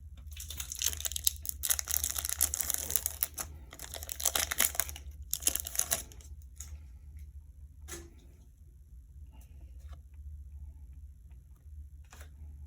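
Foil booster-pack wrapper crinkling and being torn open for about six seconds, then quieter handling of the cards with a few soft clicks.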